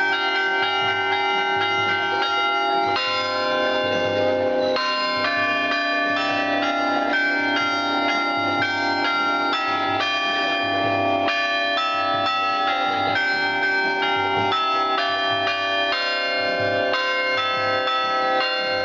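Bells chiming without a break, several pitches sounding together and changing every second or so.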